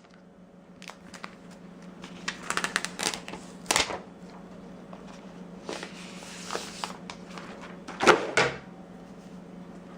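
Protective plastic wrap being pulled off a new iPad 2, with a run of clicks and crinkles, a stretch of rustling about six seconds in, and two loud knocks just after eight seconds.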